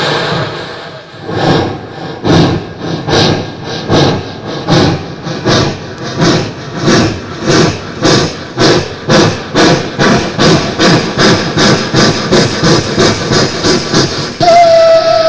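Vocal mimicry of a steam train: rhythmic puffing chuffs that start slowly and speed up steadily, then a long, steady steam-whistle imitation starting near the end.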